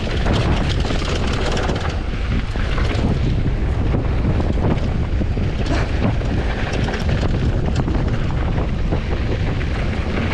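Wind buffeting the camera microphone on a fast downhill mountain-bike run: a constant low rumble broken by frequent short clatters and knocks from the bike and its tyres on rough ground.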